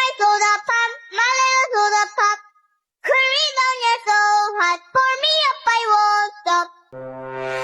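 A high-pitched, child-like voice singing a melody in two phrases, with a short break about two and a half seconds in. Near the end a loud, buzzy sustained tone comes in.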